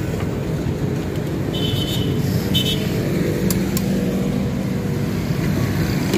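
Steady street traffic noise, a low engine rumble from passing vehicles. Two short high-pitched beeps come about one and a half to two and a half seconds in, and a couple of light clicks follow about a second later.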